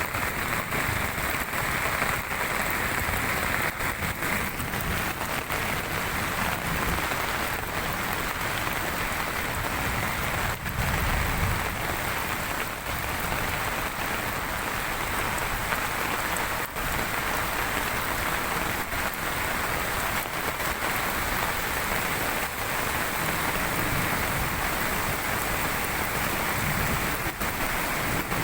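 Steady rush of falling water: heavy rain together with a tropical waterfall in full, high-volume flow after the downpour.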